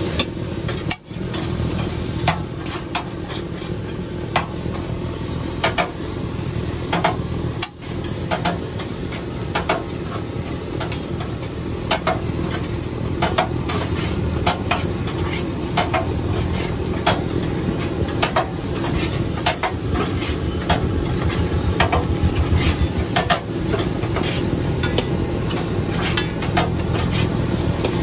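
A metal spatula clinking and scraping on a hot griddle, one or two ringing taps a second at an uneven pace, over a steady sizzle of food frying.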